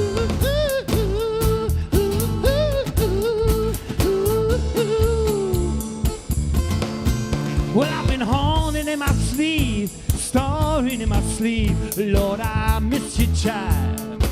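Live band playing a blues-rock song: a drum beat, bass and guitar, with a lead melody line that holds long notes and then wavers with wide vibrato.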